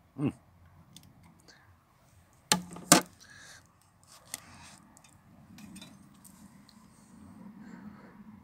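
Handling noise as an LED off-road spotlight is unpacked and turned in the hand: a soft thump at the start, two sharp knocks about half a second apart a couple of seconds in, then a lighter click, with faint rustling of plastic wrap between them.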